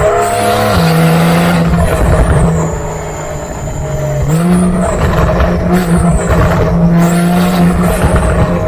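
Porsche 992 flat-six running through a freshly fitted SpeedCraft titanium full exhaust system, held at raised revs. The engine note drops about a second in and climbs again about halfway through.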